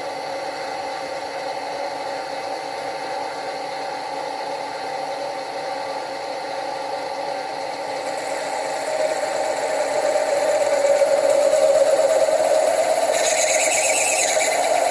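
A drill turning in a machine-driven drill chuck, boring into the metal smoke box of a model steam locomotive: a steady whine of the machine with cutting noise. The cutting gets louder about nine seconds in and turns harsher and hissier near the end as the drill bites deeper.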